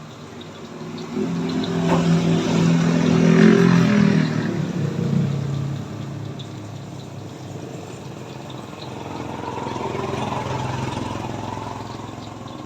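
A vehicle engine passes close by: it rises about a second in, is loudest for a few seconds, then fades.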